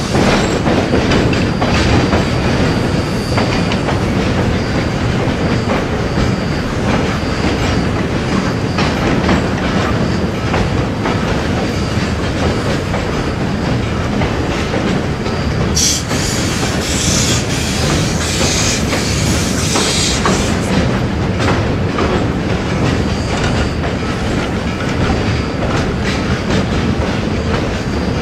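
Freight train cars rolling on the rails, heard from aboard, behind Western Maryland 2-8-0 steam locomotive 734: a steady clickety-clack over rail joints, with a thin wheel squeal coming and going on the curve. About halfway through there are a few seconds of high hiss.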